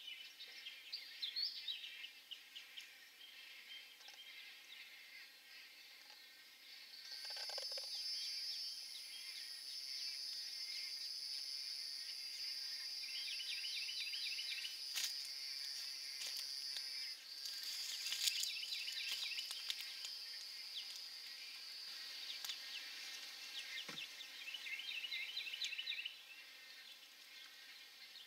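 A steady, high-pitched insect buzz starts about seven seconds in and cuts off near the end. Short bursts of high bird chirping come and go throughout.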